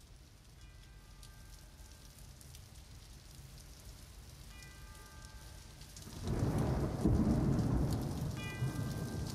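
Steady rain with a rumble of thunder that swells about six seconds in and slowly fades. A brief high tone of several pitches sounds three times, about four seconds apart, over the rain.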